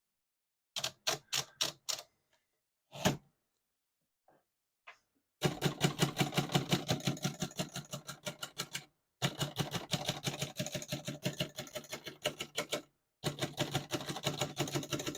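1940 Remington Deluxe Noiseless portable typewriter: a handful of clicks and a knock as the paper is loaded. Then rapid, muffled keystrokes in three runs, with the margin bell ringing briefly near the end, the sign that the carriage has reached the right margin.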